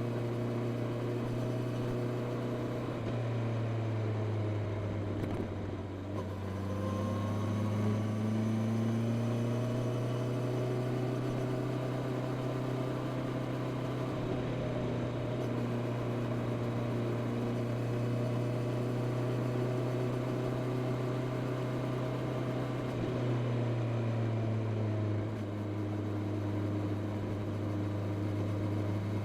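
Honda CB650R inline-four engine running through its stock exhaust while riding at fairly steady revs. The engine note drops and picks up again a few seconds in, and again near the end.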